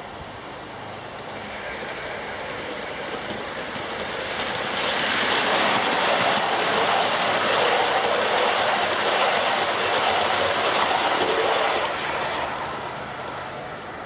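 O gauge model train, a diesel locomotive hauling passenger coaches, running along the track and past close by. Its running noise on the rails grows louder about five seconds in and fades after about twelve seconds as the train goes by.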